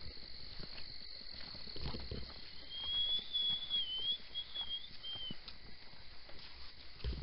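Night insects trilling steadily on two high pitches, with irregular footsteps and scuffs on a woodland dirt road. In the middle, about three seconds of a high wavering whistle that breaks up near the end.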